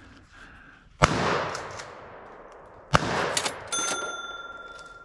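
Two rifle shots about two seconds apart, each echoing off through the woods. Just after the second shot a single chime sound effect dings and rings on as the hunt's score tally updates.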